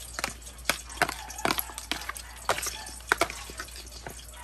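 A metal fork clicking and scraping against a plastic tub while a wet mix of vinegar-dressed tuna and vegetables is tossed by hand, in a run of irregular sharp clicks.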